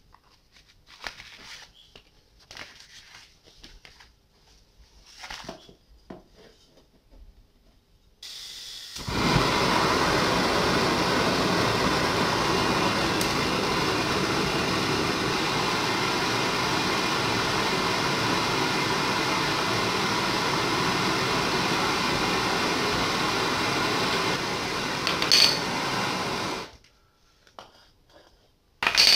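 A butane canister torch burning with a steady hiss for about eighteen seconds as it heats the end of a steel rebar rod to red heat. A quieter gas hiss comes just before it catches, and the flame cuts off suddenly. Before that, a few light metal clinks and knocks come as the torch and rod are set in place.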